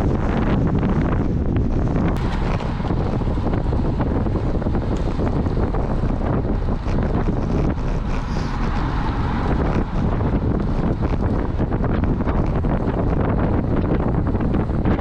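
Strong wind buffeting the microphone: a loud, steady rumble that holds throughout.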